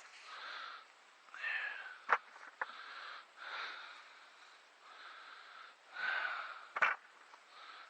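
A man's heavy, labouring breathing, in and out every second or so, from the exertion of digging potatoes by hand. Three sharp knocks are heard: two about two seconds in and one near the end.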